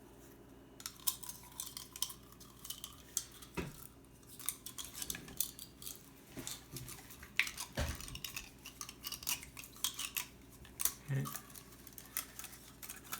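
Hand-handling of the underwater camera housing's small parts while a ribbon cable is fed through them: irregular light clicks, taps and scrapes of hard pieces knocking together.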